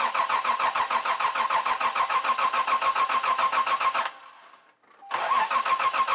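1992 Lexus SC300's straight-six cranked on the starter in two long attempts: a fast, even chug over a steady whine that stops about four seconds in, then starts again about a second later. The engine never catches; the owner takes it for a lack of spark, since it is getting fuel and air.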